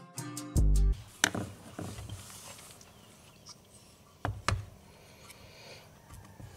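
Background music that cuts off about a second in, then quiet handling of VW Beetle speedometer parts: a few sharp clicks and knocks, two of them close together near the middle, as the mechanism is moved and set into its metal housing.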